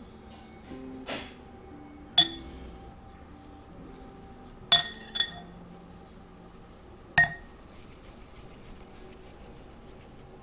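Small metal utensils clinking against a glass mixing bowl: four sharp clinks with a brief high ring. One comes about two seconds in, a quick pair near the middle, and one about seven seconds in.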